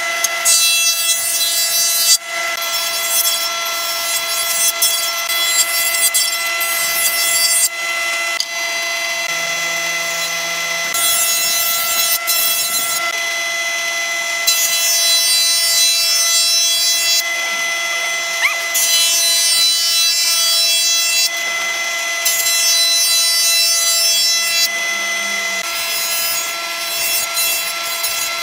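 Jointer (surface planer) of a combination woodworking machine running with a steady motor whine. Its cutterhead planes boards in repeated passes, and the high rushing cutting noise swells and drops away with each pass.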